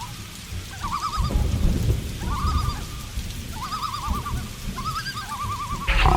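A wavering, warbling animal call repeats about every second and a half over low rumbles of thunder. A loud crack of thunder breaks in just before the end.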